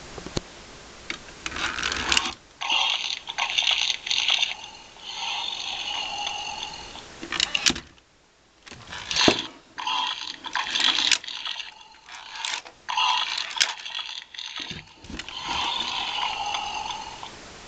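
Tinny electronic sound effects from the small speaker of a Fisher-Price Imaginext Eagle Talon Castle dragon toy, played in several bursts a couple of seconds long. Sharp plastic clicks from handling the toy come between them.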